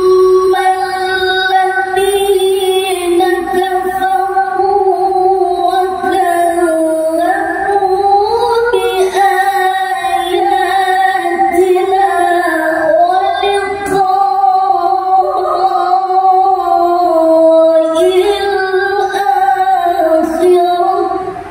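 A man's voice chanting Quran recitation (tilawah) in the ornamented melodic style of a competition qari, drawing out a long, high phrase with wavering pitch and only brief breaks, amplified through a microphone.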